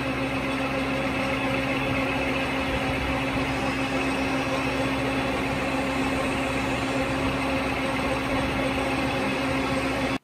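Lathe running steadily while turning a nylon 6/6 bar, the tool peeling off a long continuous stringy chip: an even machine hum with one constant tone.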